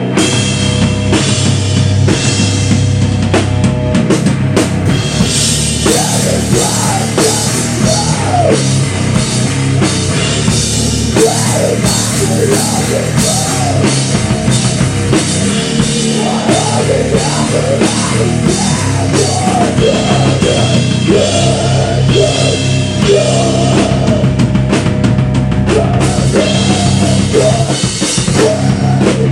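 Live rock band playing loud: a full drum kit with bass drum and cymbals driving a steady beat under amplified electric guitar and bass guitar.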